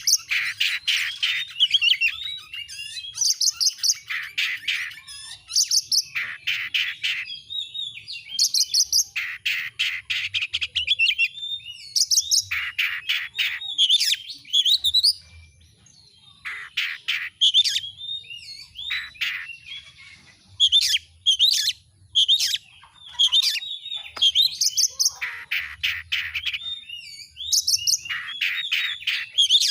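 Oriental magpie-robin singing loudly: fast rattling trills alternating with twisting whistled phrases, in bursts of about a second with short gaps between them.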